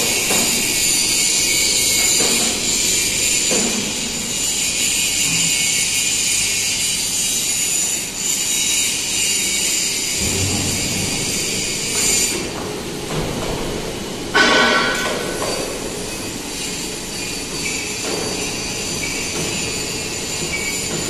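Steady high-pitched machine hiss with several fixed whining tones, which cuts off about twelve seconds in. About two seconds later comes a brief, loud squeal.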